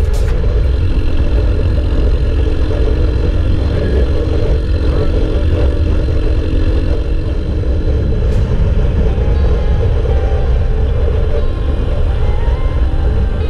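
Motorcycle cruising at a steady speed on an open road: heavy wind rumble on the bike-mounted camera's microphone over the engine's steady running.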